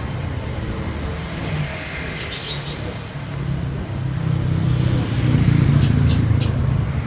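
Street traffic: a motor vehicle engine running close by, growing louder about four to six seconds in as it comes past.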